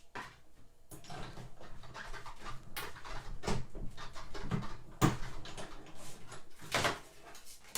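Working a Big Shot die-cutting machine: irregular knocks, clicks and rustles as the cutting plates and paper are handled and run through, with the loudest knocks about five and seven seconds in.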